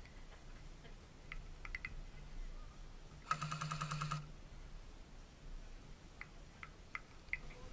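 Faint scattered clicks, then about three seconds in a burst of rapid pulses lasting just under a second: distant airsoft guns firing, the burst a short full-auto string.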